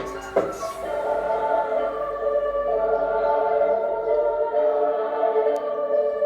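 Background music: sustained choir-like chords.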